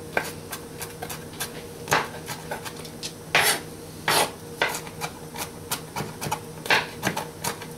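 Kitchen knife chopping bell pepper on a cutting board: irregular knocks of the blade on the board, with a few longer scrapes as the pieces are pushed together. A faint steady hum runs underneath.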